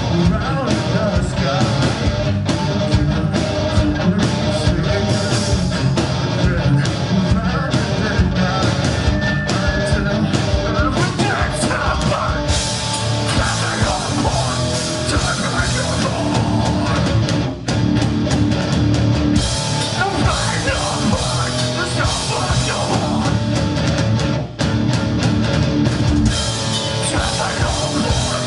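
A live rock band plays loud and without letup: electric guitars and a drum kit. The band drops out for a split second twice, once past the middle and again later on.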